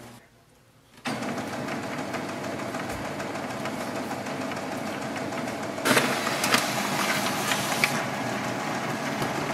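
Xerox B230 laser printer starting up after being switched on: its internal motors and gears start running suddenly about a second in, a steady mechanical whir. About six seconds in it grows louder, with clicks and rattles, as the printer runs its power-on warm-up before it is ready.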